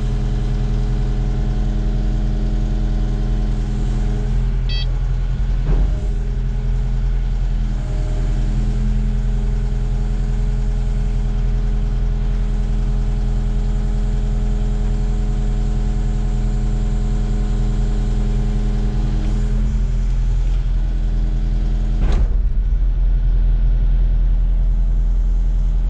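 Kubota excavator's diesel engine running at a steady speed, with a sharp knock about six seconds in and another near the end.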